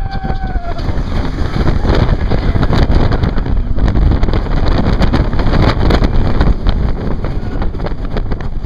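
Wind buffeting the microphone over the low rumble of a Vekoma Giant Inverted Boomerang coaster train running at speed along its track, heard from a rider's seat. A rider's yell trails off in the first second.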